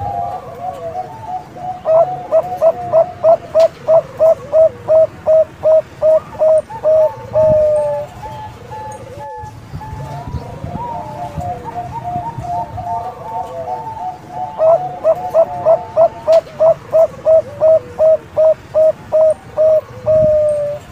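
Zebra dove (Bangkok-type perkutut) singing: two bouts of rapid, evenly spaced staccato coos, about four a second, each ending in a longer drawn-out note, with softer cooing in between.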